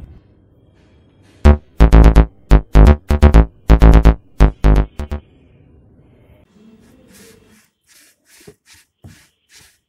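Short electronic keyboard jingle: a quick run of loud synthesizer notes lasting a few seconds, followed by a few faint short taps and rustles near the end.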